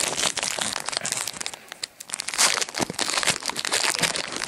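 Foil wrapper of a Yu-Gi-Oh! Gold Series booster pack crinkling and tearing as it is pulled open by hand, dipping briefly about halfway through.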